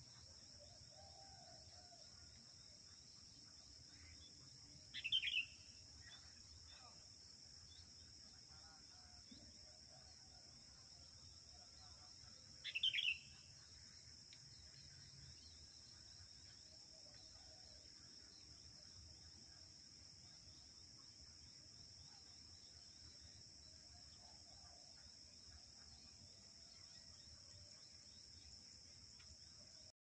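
Sooty-headed bulbul giving two short calls about eight seconds apart, a female calling to a male. A steady high drone of insects runs beneath.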